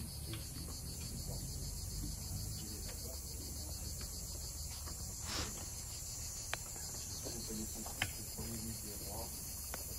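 A steady, high, finely pulsing chorus of insects from the trees. Two sharp clicks come about six and a half and eight seconds in, and faint voices are heard in the background.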